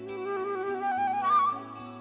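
Transverse flute playing a stepping melodic phrase over a rock band's held chords and steady bass, with light drum ticks underneath. The flute line peaks and drops away about one and a half seconds in.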